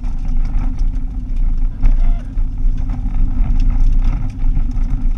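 Car driving on a dirt road, heard from inside the cabin: a steady low engine and tyre rumble with frequent small clicks and rattles from the car's body and the loose road surface.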